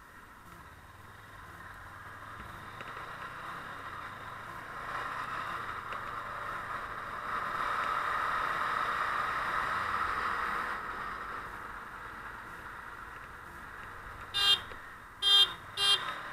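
Motorcycle riding noise, engine and wind, swelling midway and easing off, then three short horn toots near the end.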